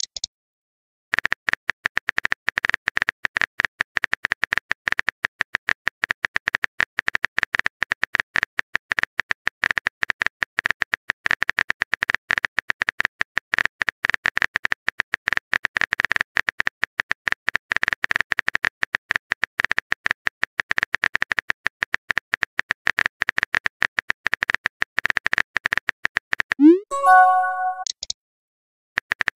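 Smartphone keyboard typing sound effect: a rapid, continuous stream of light clicks. Near the end it stops and a short rising chat-notification chime sounds as the typed message arrives.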